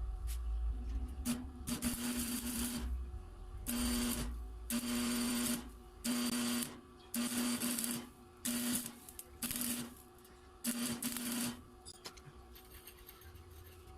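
Homemade mini lathe driven by a repaired angle-grinder motor, running in about eight short bursts of a second or less. Each burst is a steady hum with hiss, starting and stopping abruptly.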